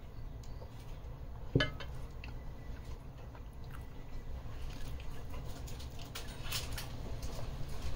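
A glass set down on the table with a single sharp knock about one and a half seconds in, then light crackling as the grilled pita wrap is picked up by hand near the end, over a low steady hum.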